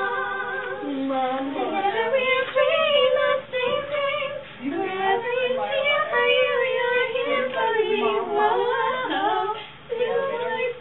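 Young women's voices singing, holding long notes and sliding up and down in pitch.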